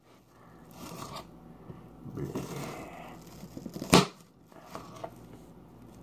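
Kitchen knife slicing through a peeled onion on a cutting board, with irregular scraping and cutting noises and one sharp knock about four seconds in.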